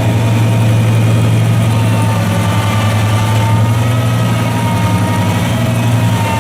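Engine of heavy stump-removal machinery running steadily with a deep, even hum and a faint higher whine above it.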